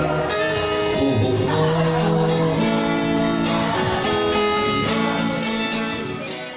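Background music led by plucked acoustic guitar, fading out near the end.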